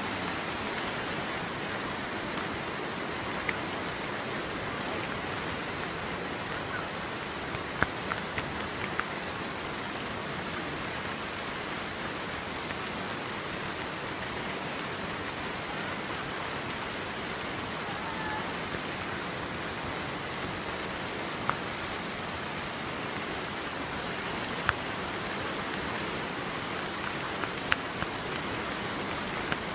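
Steady hiss of heavy rain mixed with the rush of the flooded Kunthipuzha river running bank-full, with a few scattered sharp ticks.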